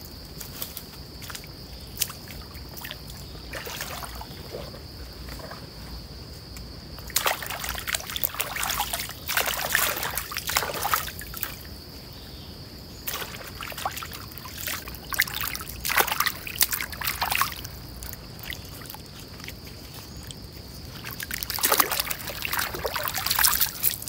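Shallow stream water splashing and sloshing as a person wades and works a banana leaf on the water with her hands, in three spells of a few seconds each, the loudest near the end. A steady high-pitched buzz runs underneath.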